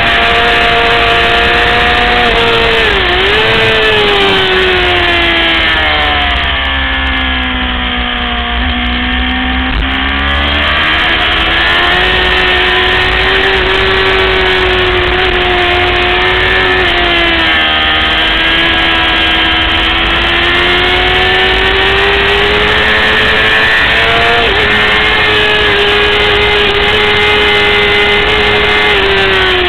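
600cc racing motorcycle engine running at high revs. The pitch falls steeply about five seconds in, bottoms out around eight to nine seconds and climbs back by about eleven seconds. There are smaller brief dips a few seconds in and near the middle.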